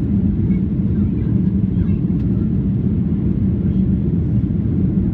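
Steady low rumble inside the cabin of a Boeing 737-800 in flight: airflow and CFM56-7B engine noise heard from a window seat over the wing.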